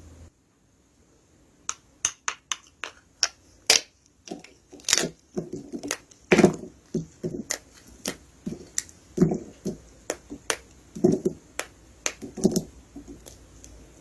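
Dry soap being crushed: after a brief silence, a quick run of sharp cracks, then irregular louder crunches.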